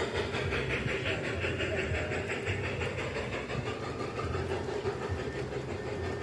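Large-scale model trains running on an outdoor track: a steady whir and rumble of motors and wheels rolling over the rails.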